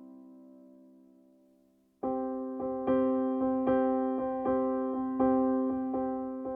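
Background keyboard music. A held chord fades away, then about two seconds in the music comes back in sharply with repeated chords struck at a steady beat.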